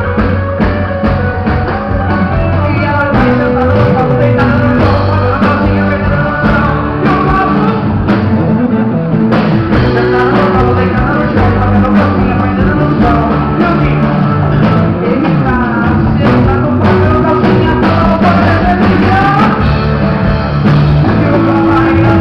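Live band playing loud amplified music with electric guitars and drums, a male singer singing over it.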